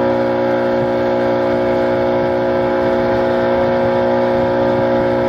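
Motor of a river cruise boat running steadily under way, a constant even drone with no change in pitch.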